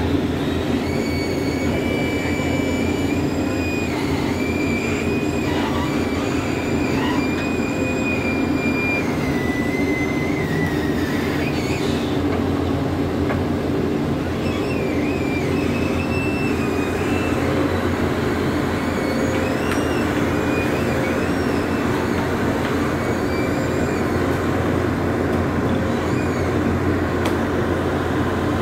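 Pindad PC200 excavator working, its diesel engine running steadily with a dense low rumble. High squealing whines waver in pitch over it, mostly in the first dozen seconds and again from about fifteen to twenty-five seconds in.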